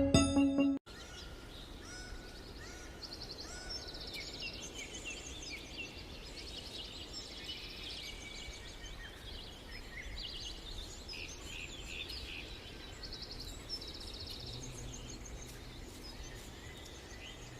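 Many small birds chirping and twittering in quick, high-pitched calls over a steady background hiss, starting about a second in.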